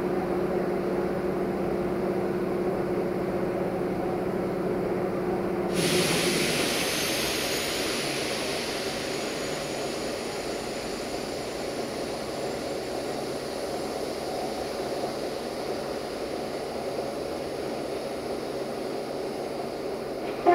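Steady mechanical hum from a train at the platform, which stops about six seconds in as a sudden loud hiss of released air sets in and slowly dies away.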